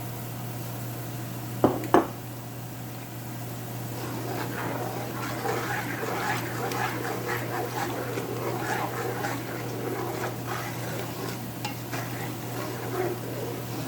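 Chili flakes frying in hot garlic oil while being stirred in the pot, a crackling sizzle that builds up about four seconds in. It is preceded by two loud, sharp sounds close together just under two seconds in.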